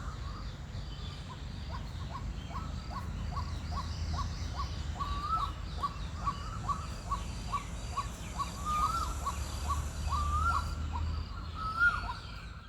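White-breasted waterhen calling: a steady, monotonous series of short notes at about two a second, with a few longer rising-then-falling notes in the second half. Other birds call faintly higher up, over a low background rumble.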